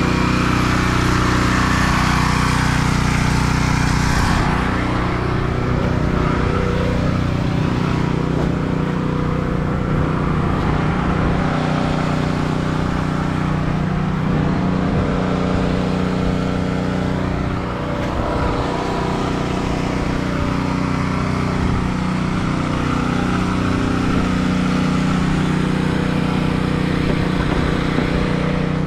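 Small gas engine of a pressure washer running steadily, with the hiss of the high-pressure water spray, strongest in the first few seconds.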